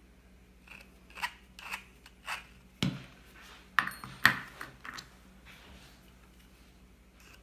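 Lyman Case Prep Multi-Tool's deburring head scraping the mouths of new brass cases in several short strokes, with a knock and sharp metallic clinks as the cases and tool are handled.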